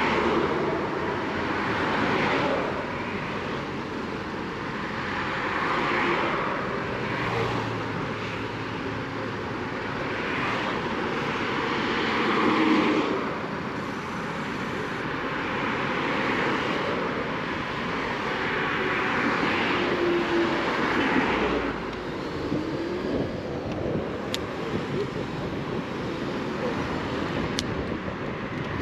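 Wind rushing over the microphone with road noise from a moving electric scooter, rising and falling in loudness.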